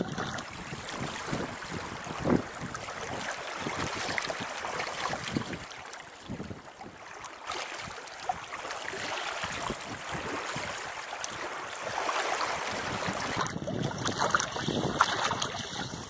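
Small waves lapping and splashing over the pebbles and rocks of a gravel reservoir shore, with wind blowing over the water.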